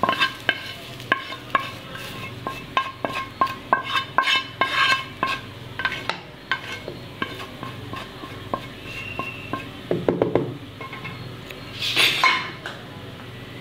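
Wooden spatula scraping and knocking against a frying pan, clearing fried onion and capsicum tempering into a bowl of batter. A quick run of sharp taps with a slight ring fills the first seven seconds, then there are two brief scrapes, one about ten seconds in and one near the end.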